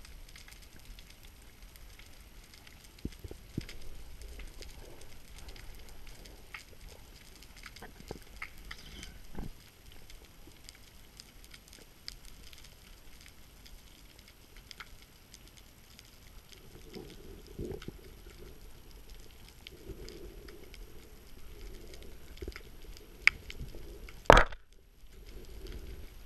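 Underwater sound through a diver's camera housing: a faint steady crackle with scattered clicks and knocks. A low hum comes and goes in the later part, and one loud, sharp burst comes about two seconds before the end.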